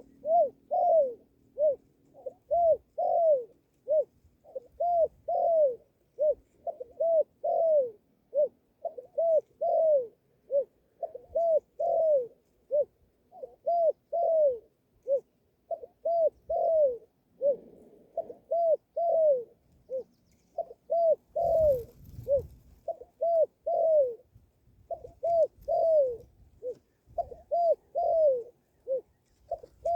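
A dove cooing: a long run of short, arched coos, two to three a second, grouped in phrases with brief pauses between them. A brief rustle is heard about two-thirds of the way through.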